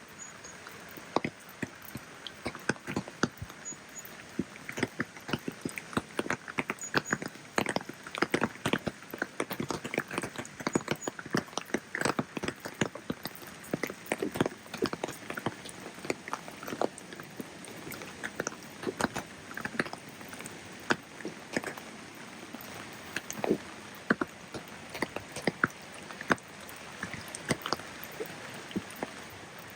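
Rain falling, with a dense, irregular patter of individual drops tapping and ticking close by over a soft steady hiss.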